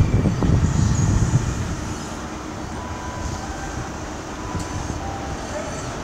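Class 43 HST diesel power car pulling out of the station, its engine rumble loudest in the first second or so and then dropping to a steadier, quieter running sound as the train draws away.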